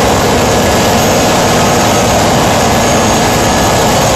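Marine diesel engines and engine-room machinery running inside a ship's engine room: a loud, steady din with no letup.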